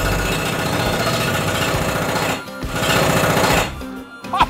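Hydraulic breaker on a JCB 19C-1E electric mini excavator hammering into the ground, a rapid steady pounding. It pauses briefly about two and a half seconds in, hammers again for about a second, then stops.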